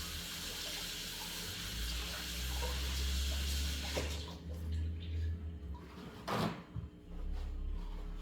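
Water running from a kitchen tap during hand washing, turned off abruptly about four seconds in; a short knock follows a couple of seconds later.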